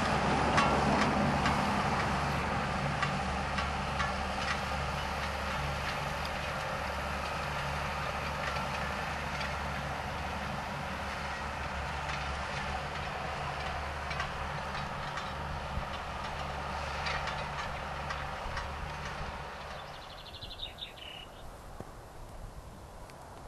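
Ford 8340 tractor's six-cylinder diesel engine running steadily under load as it pulls a four-furrow reversible plough, growing fainter near the end.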